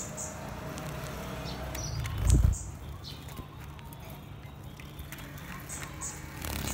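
Caged sunbirds bathing in a shallow water bowl: short high chirps now and then, light splashes and wing flutters, and one loud low thump about two seconds in.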